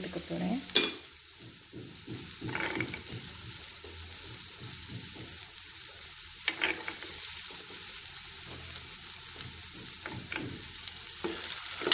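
Chopped vegetables and egg sizzling in olive oil in a large pan as they are stir-fried, with a steady sizzle and a few short spatula scrapes against the pan.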